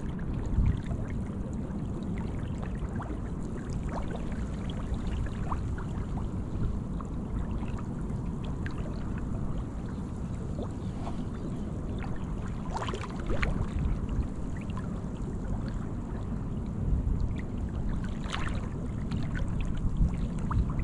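Water sloshing and dripping as a wet cast net is gathered and arranged by hand by a man wading waist-deep, with scattered small drips and splashes. Under it runs a steady low rumble of wind on the microphone.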